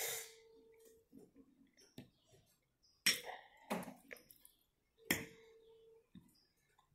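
Metal fork clinking and scraping against a glass bowl while picking up pieces of egg: a few sharp clinks, two of them leaving a short ringing tone of about a second.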